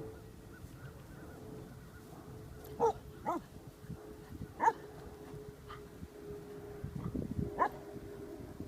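A dog barking in short, sharp, high yips, several separate barks a second or more apart beginning about three seconds in, as a stranger steps up to greet it.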